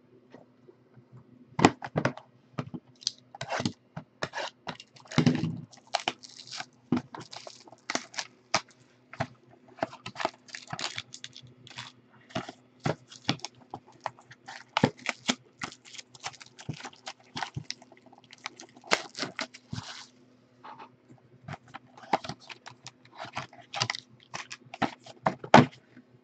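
Foil trading-card pack wrappers crinkling and tearing as they are handled and opened by hand: a dense run of irregular crackles over a faint steady hum.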